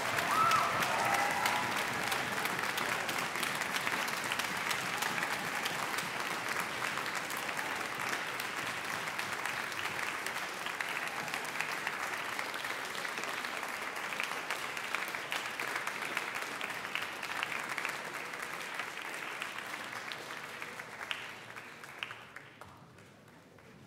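Audience applauding, the clapping gradually thinning and dying away, with a few last separate claps near the end.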